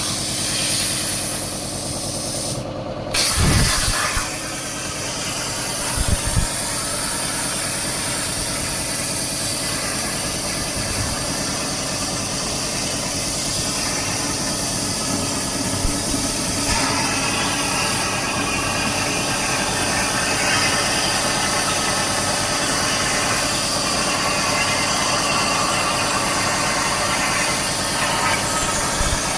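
CNC plasma torch cutting 8 mm mild steel: a steady hissing arc with a whine of several steady tones. Just before three seconds in the arc cuts out briefly, then restarts louder as it pierces the plate, and cutting goes on.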